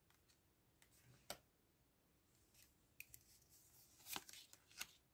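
Faint clicks and snaps of tarot cards being handled: a single card sound about a second in, then a few quicker card sounds near the end as the cards are gathered into the deck.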